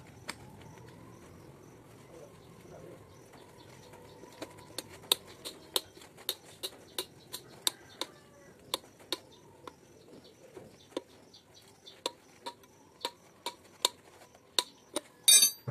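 Sharp, irregular clicks and taps, roughly two or three a second, as a perforated metal hydraulic filter tube is handled and pressed into place, with a short louder rattle near the end.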